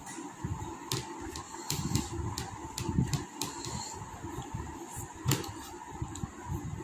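Eating sounds: a string of irregular sharp mouth clicks and smacks while chewing a meal, over the steady hum of an electric fan.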